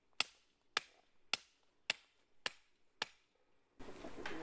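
Hammer striking metal fencing hardware in light, evenly paced taps, about two a second, then outdoor background noise rises suddenly near the end.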